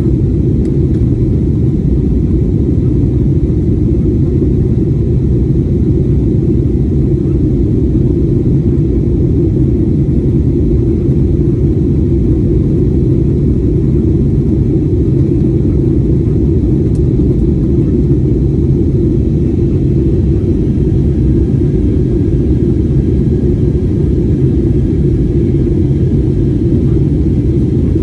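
Jet airliner cabin noise in flight shortly after takeoff, heard from a window seat over the wing: engine and airflow noise as a steady, loud low rumble.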